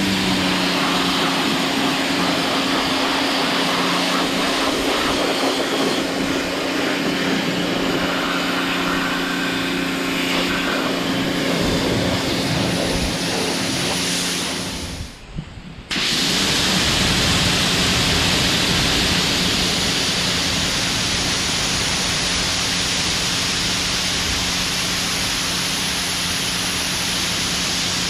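Powerworks 1700 PSI electric pressure washer running: steady hum of its electric motor pump under the hiss of a high-pressure water spray. About halfway through, the spray and motor cut out for about a second, then start again.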